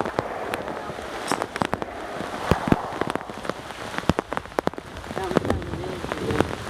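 Steady rain, with many loud individual raindrops striking close by as sharp ticks.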